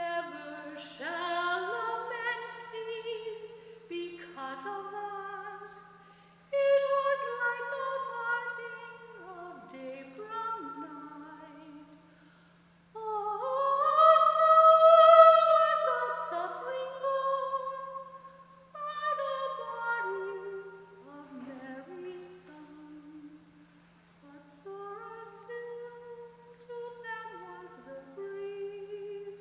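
A woman's solo singing voice in slow, sustained phrases with short pauses between them, over a steady low hum.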